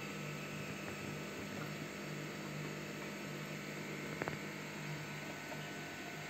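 Steady low hum of running aquarium equipment over an even hiss, with a brief double click about four seconds in.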